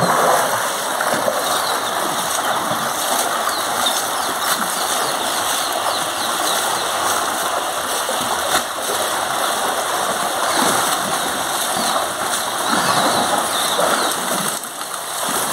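Water splashing steadily in a concrete bathing tank as an elephant rolls in it and a man throws water over her, with a stream of water pouring in.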